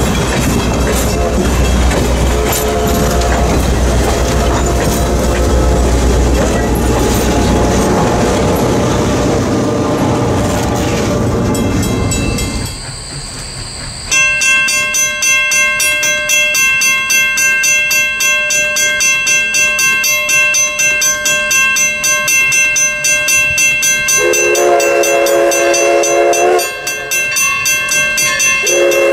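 Passenger coaches roll past close by, their wheels rumbling and clacking on the rail with some thin squeal. Then a crossing bell dings about twice a second while the steam whistle of Everett Railroad No. 11, an ALCO 2-6-0 Mogul, blows a long blast and starts a second one near the end as the locomotive approaches.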